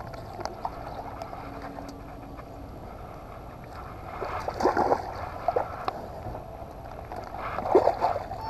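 Water sloshing and knocking around a small aluminium jon boat while a hooked bass is fought to the boat, with short louder bursts about four and a half seconds in and again near the end.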